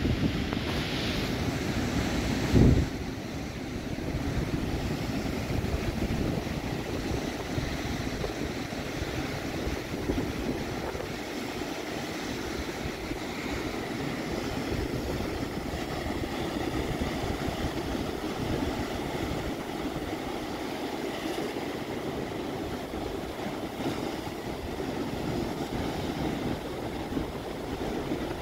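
Sea surf breaking and washing over shoreline rocks, a steady rushing wash with low rumble from wind on the microphone. A brief loud thump about two and a half seconds in.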